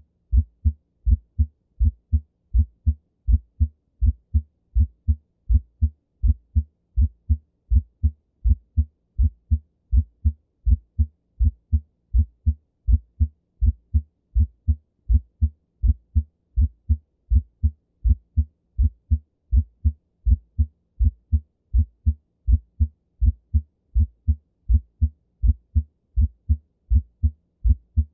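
Human heart sounds with a split first heart sound (S1), the usually normal finding that can also go with a right bundle branch block. It is a regular train of dull, low thuds repeating beat after beat at a steady rhythm.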